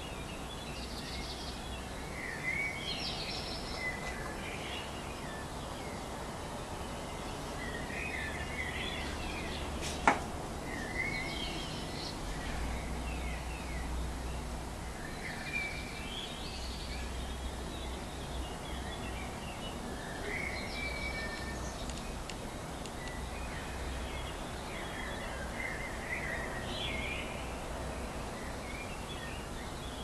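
Songbirds singing in a dawn chorus, short chirping phrases recurring every few seconds over a low steady rumble. A single sharp click about ten seconds in.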